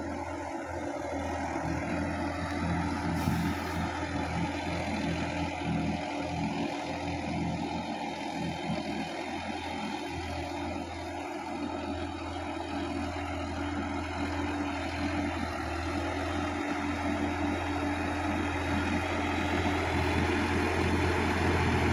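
Sonalika DI-50 RX tractor's diesel engine running steadily under load as the tractor works a muddy paddy field. The sound grows louder toward the end as the tractor comes closer.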